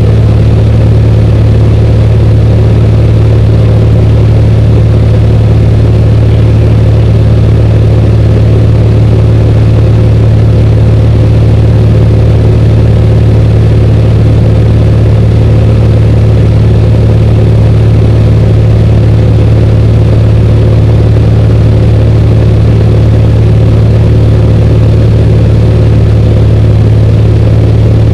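Single-engine light aircraft's piston engine and propeller running steadily, heard inside the cockpit as a loud, even drone with a strong low hum.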